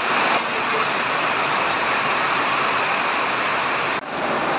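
Steady rush of heavy tropical-storm rain and water, easing slightly about four seconds in.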